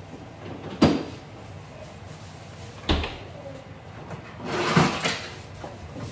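Refrigerator and kitchen doors knocking shut: two sharp knocks about two seconds apart, the first about a second in, then a second-long rustling noise just before the five-second mark.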